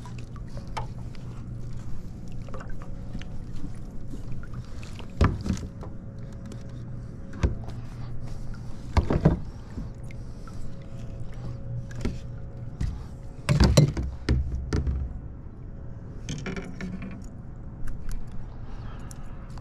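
A hooked largemouth bass being worked to a landing net beside a plastic kayak: water splashes and knocks of gear against the hull, several sharp ones spread through, the heaviest about two-thirds of the way in, over a steady low hum.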